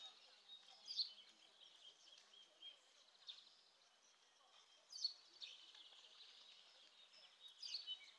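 Faint outdoor ambience: short bird chirps every few seconds over a steady, faint high-pitched hiss.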